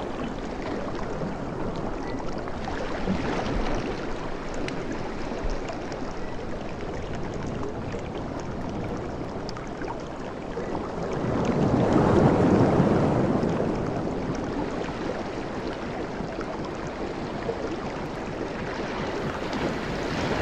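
Ocean waves washing onto a beach in a steady rush of surf. One louder wave swells and fades a little past the middle.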